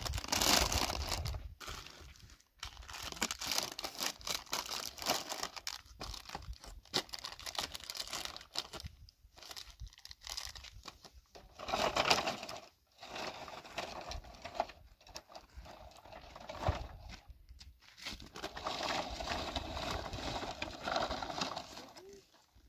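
Irregular crinkling and rustling, coming in bursts with short gaps between them.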